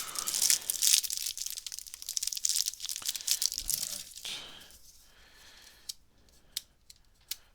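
Trading-card booster pack wrapper being torn open and crinkled, a dense crackling that fades out after about four seconds. It is followed by a few light clicks near the end.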